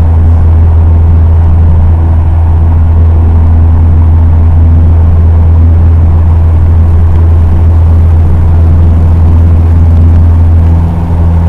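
Cessna 150's four-cylinder Continental O-200 engine and propeller running steadily at climb power, a loud, even low drone.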